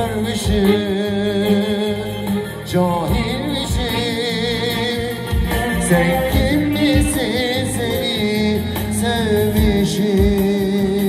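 Live Turkish band music: a clarinet plays a wavering, ornamented melody over electronic keyboards with a steady beat.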